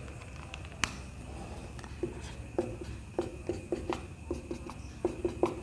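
Marker pen writing on a whiteboard: a run of short strokes and taps as letters are drawn, starting about two seconds in.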